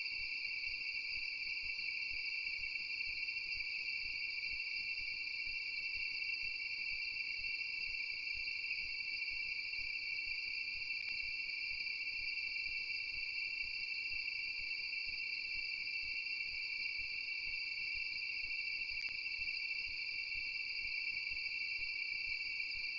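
Night insects trilling in a steady, unbroken chorus, a continuous high-pitched sound with no pauses.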